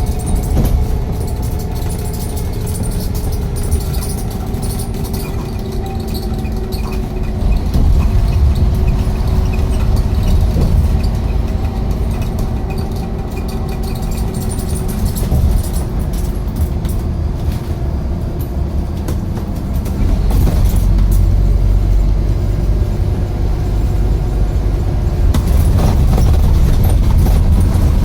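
A bus engine running under way, a steady low rumble with a held engine tone. It gets louder about a third of the way in and again near the end.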